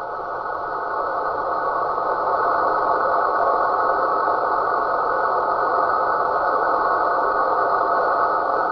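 Steady, muffled rushing drone from a radio receiver, the sound the uploader calls a snoring sasquatch. It swells slightly over the first second or two, then holds even.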